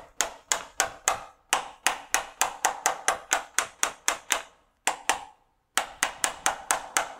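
Rapid sharp taps, about four a second with a short ring after each, from the solenoid body of a Mercury Optimax oil-injection pump being tapped down into its aluminium housing with a screwdriver. This seats it over a new Viton O-ring. The tapping pauses briefly twice about five seconds in, then carries on.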